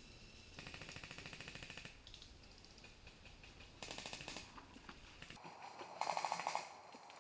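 Airsoft guns firing full-auto in three bursts of rapid shots: a longer burst of over a second near the start, then two shorter bursts about two seconds apart, the last the loudest.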